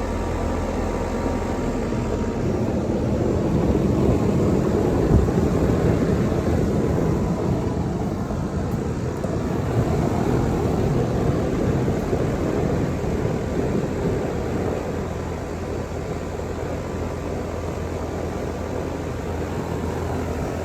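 Outdoor condensing unit of a 5-ton Lennox Elite central air conditioner running steadily: the condenser fan's whoosh over a constant low hum.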